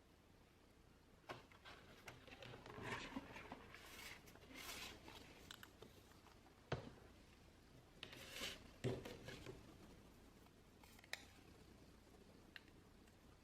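Quiet handling sounds: soft rustling of packaging with a few sharp clicks and taps spread through.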